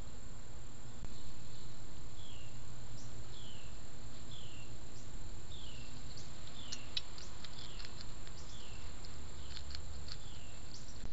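A bird calling over and over, a short falling whistle about once a second, over a steady low hum. A run of sharp ticks comes in the second half.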